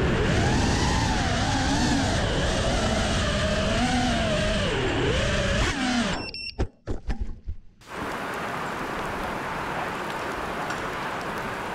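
FPV quadcopter motors whining, their pitch rising and falling with the throttle, over rushing air. The sound breaks off about six seconds in, with a few clicks, and gives way to a steady hiss of rain.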